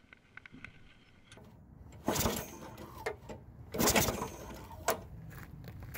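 Walk-behind lawnmower's small gasoline engine being pull-started to check for spark: two loud pulls of the recoil starter about two and four seconds in, with a low steady engine sound after them.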